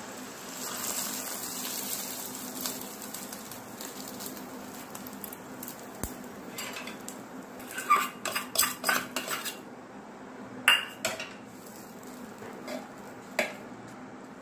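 Hot tempering oil poured from a small steel tadka pan onto khichdi in a pressure cooker, giving a soft sizzle for the first few seconds. Then steel pan and ladle clink sharply against the cooker several times, with one more clink near the end.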